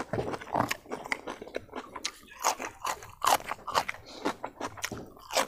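A man chewing a mouthful of rice and pig's feet, with irregular wet smacks and clicks of lips and tongue, several a second.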